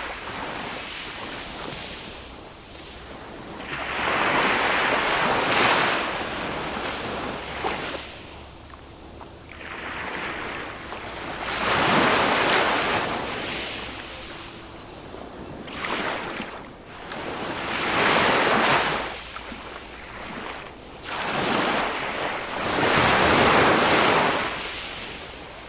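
Small sea waves breaking and washing up on a sandy beach, a calm sea, each wash swelling and falling away every few seconds, with some wind on the microphone.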